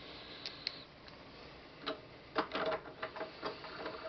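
Irregular small clicks and taps as the end caps are fitted back onto a UV lamp housing: a few at first, then a denser run in the second half with a faint ringing tone under them.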